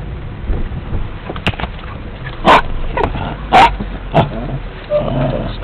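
A dog in a moving car barks sharply several times, the two loudest barks about a second apart in the middle, then whines near the end, over the steady low rumble of the car.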